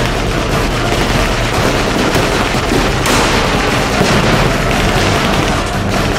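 Reenactment battle noise: a dense run of blank rifle and machine-gun shots mixed with booms of pyrotechnic charges, the biggest boom about three seconds in.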